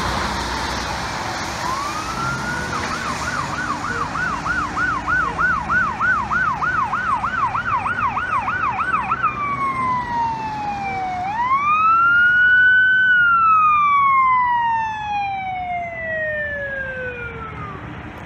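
Ambulance's electronic siren: a short falling wail, then about six seconds of fast yelp at roughly three to four cycles a second, switching back to a wail that rises and then falls slowly, fading near the end. Road traffic runs underneath.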